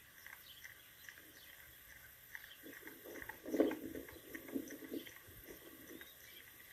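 Dog chewing and swallowing a whole rabbit: scattered small clicks of jaw work, with a louder run of chewing about halfway through.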